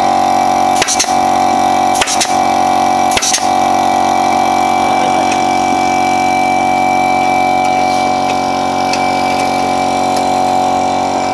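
A steady machine drone with an even, unchanging pitch, and three sharp knocks about a second apart near the start.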